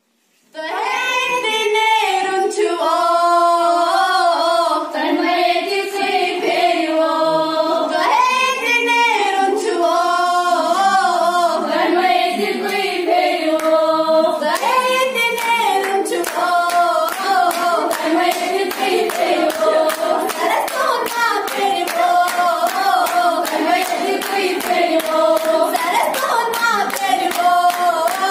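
Girls singing a song into a microphone, starting about half a second in. About halfway through, steady rhythmic hand-clapping joins in, keeping the beat.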